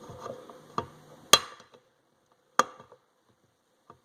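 Wenger Evo 63 Swiss Army knife's can opener jabbing and levering at a tin can lid: a few sharp metallic clicks and knocks, the two loudest about a second apart, as the tool keeps failing to get purchase on the lid.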